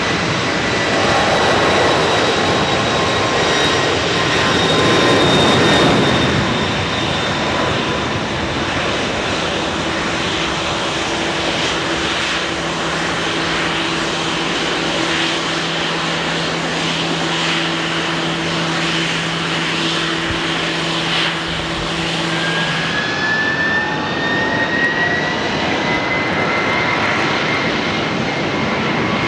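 Airbus jet airliner's engines running with a steady roar and whining tones. A pair of low steady tones holds for a while, then a higher whine rises slowly about two-thirds of the way in.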